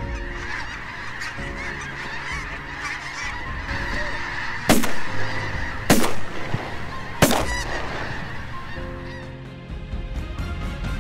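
A large flock of snow geese calling overhead: a dense, continuous clamour of many honks. Near the middle, three loud sharp bangs sound about a second and a quarter apart.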